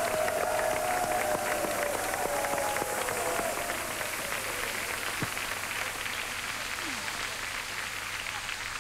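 Large studio crowd applauding steadily, dense clapping with voices mixed in.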